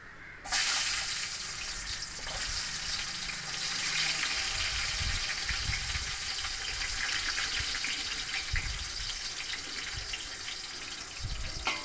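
Sliced onions dropped into hot oil in a large pot, starting a loud, steady sizzle about half a second in. This is the start of frying the onions to golden brown for a biryani base. A few soft knocks come from the handling.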